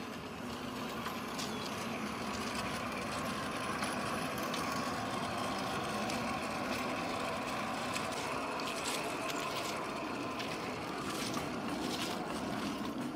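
KZV manual track-measuring trolley rolling along the rails while it records, a steady rolling hum with a faint whine that builds up over the first second or two. Scattered short clicks and crunches sound over it, mostly in the second half.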